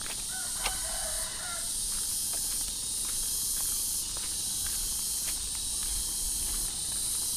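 Footsteps on a dirt path as a person walks, under a steady high-pitched hiss that swells and fades about every second and a half. A faint short whistled sound about a second in.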